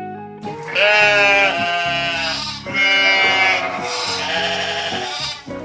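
A sheep bleating three times, each a wavering, quavering call of about a second, over bright children's background music.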